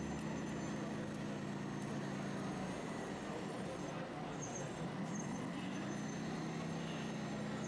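Motor hum of a 1:14-scale RC excavator as it slews its boom; the pitch sags about three seconds in and climbs back near the end. Faint voices of onlookers run underneath.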